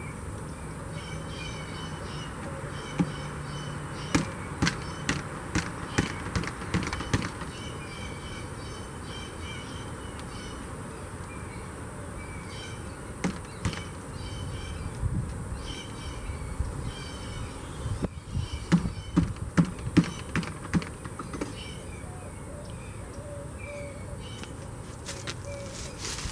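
Wooden beehive boxes being handled and pried apart, with sharp knocks and clicks, a louder run of them about two-thirds of the way through. Songbirds chirp repeatedly in the background.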